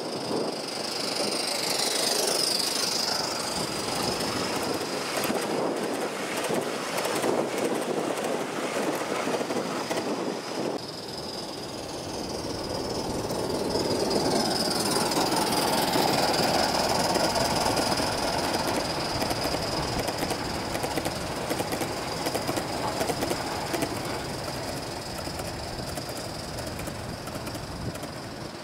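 Gauge 1 model train running on curved track: wheels rumbling and clicking over the rail joints, with a high squeal from the wheels on the curve. It grows loudest about halfway through as the train passes close.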